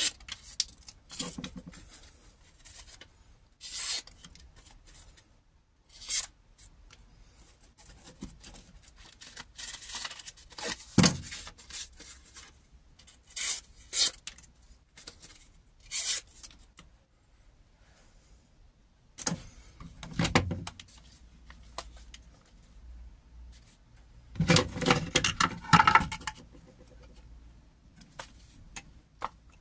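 A thin steel blade scraped in short, separate strokes across a small white block, shaving off thin curls. Near the end comes a longer, louder stretch of scraping and handling noise.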